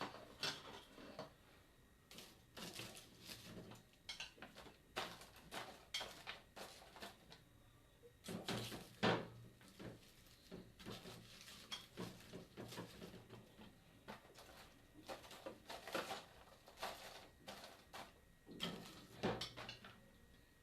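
Irregular clicks, knocks and light clattering of kitchenware and containers being handled, with a denser cluster of knocks about eight to nine seconds in.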